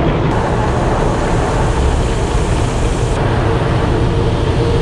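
Automatic car wash working over a car, heard from inside it: a loud, steady rushing noise with a faint steady hum underneath.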